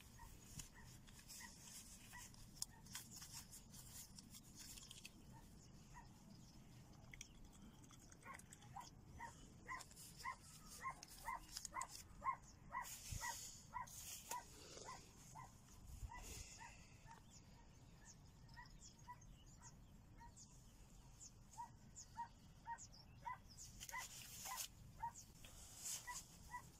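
A dog barking faintly and repeatedly, about two short barks a second, in two long runs.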